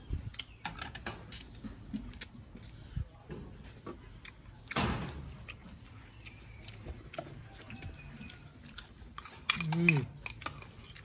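Metal spoons clinking and scraping against a ceramic plate and bowl as two people eat, in many small sharp clicks. A louder brief noisy rush comes about five seconds in, and a short voice sound near the end.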